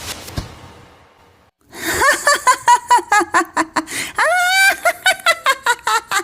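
A hiss of noise dies away, then about two seconds in a cartoon voice breaks into loud, rapid laughter, about five or six bursts a second.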